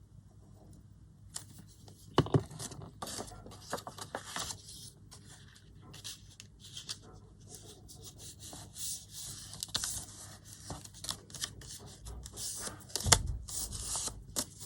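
Paper being handled, rustling and crinkling in irregular bursts as sheets are folded and pressed together, with a couple of soft knocks on the work surface.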